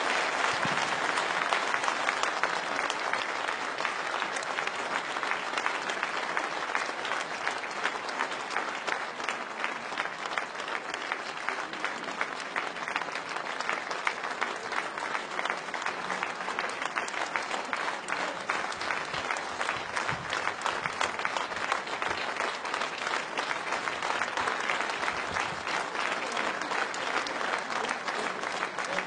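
Large audience applauding: dense, steady clapping with no music under it.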